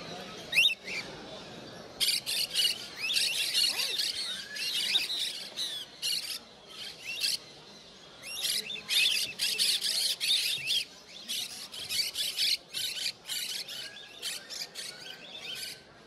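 Many caged parrots calling together: chirps and squawks overlapping in rapid bursts. One sharp rising call comes about half a second in, and the dense chatter starts about two seconds in.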